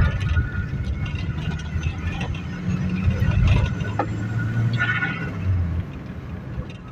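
Audi A3's 1.8 20-valve turbo four-cylinder engine running under way, with a brief rush of air about five seconds in as the engine note drops: turbo flutter, the compressor surging on lift-off with the blow-off (priority) valve removed.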